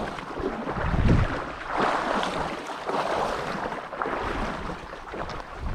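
Fast, high-running river rushing steadily, with wind buffeting the microphone in gusts, one low buffet about a second in.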